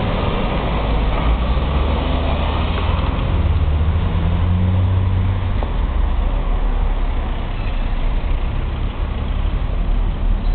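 Town-centre road traffic with a heavy vehicle's engine rumbling low, strongest in the first half and easing off after about five seconds.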